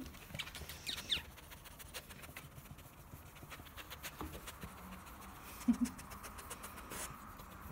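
Small Shih-Tzu cross shifting about on a towel in a lap, with fabric rustling and light scratches and clicks, and a short double sound from the dog just before six seconds in.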